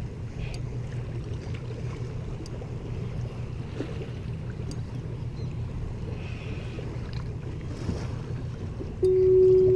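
Boat motor running steadily with a low rumble. Near the end a loud, steady tone starts and holds.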